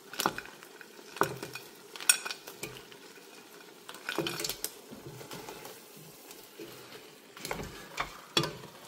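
Slotted plastic spoon scraping cooked crab pieces off a plate into a pot of frying pepper sauce, with scattered clicks and knocks against the plate and pot over a low sizzle.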